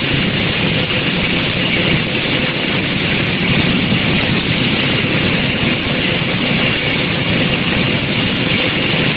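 Steady, dense machinery noise from a running soft-drink packing line: a wrap-around case packer and its conveyors working continuously, with a faint steady hum underneath.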